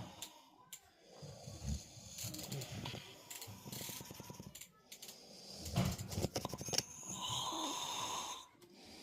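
A man snoring in his sleep: rattling snores on the in-breath, about two seconds in and again around six seconds, the second followed by a long hissing out-breath near the end.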